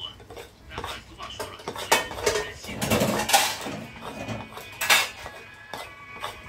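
Cutlery clinking and scraping against dishes during a meal: a run of irregular sharp clinks, the loudest about two, three and five seconds in.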